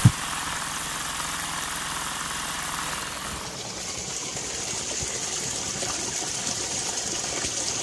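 Small homemade pico hydro turbine running, water rushing through it and its hoverboard-wheel generator giving a low steady hum, with a sharp thump at the start. About three seconds in, the sound changes to the hiss and splash of the outflow gushing from the turbine's downpipe into the stream.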